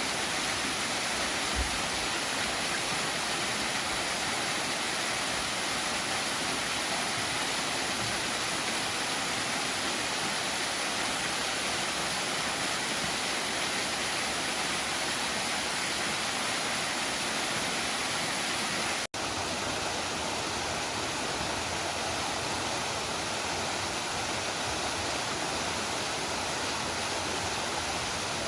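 Steady rush of falling water from a waterfall, cut off for an instant about two-thirds of the way through and then resuming.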